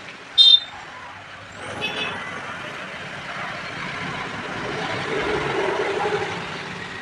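Passing road traffic: a short, loud, high-pitched squeal of an air brake or horn about half a second in, a fainter one near two seconds, then a vehicle going by that swells and fades.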